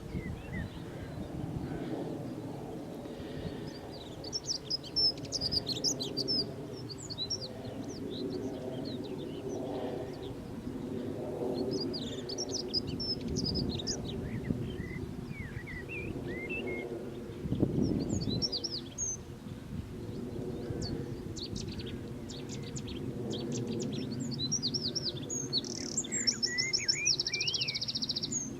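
Unidentified songbird singing a string of quick chirps, whistled slurs and twittering phrases, with a buzzy rapid trill near the end. A steady low hum runs underneath, with a brief low thump about two-thirds of the way through.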